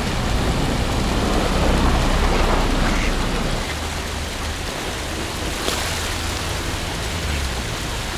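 Fountain water splashing and falling steadily, a little louder in the first three seconds.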